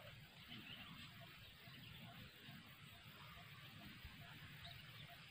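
Near silence: faint outdoor background with no distinct sound.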